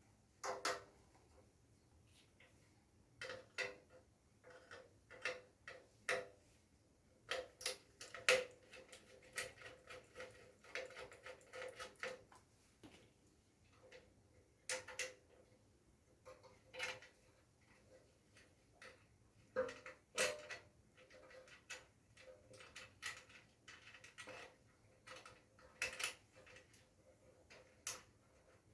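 Irregular metallic clicks, clinks and knocks of tools and small parts being handled while a water heater is taken apart and refitted, several with a brief ring.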